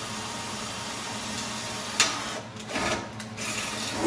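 Cordless drill with a nearly dead battery running steadily on sheet-steel fender patch work, then a sharp click about two seconds in, followed by a few short bursts.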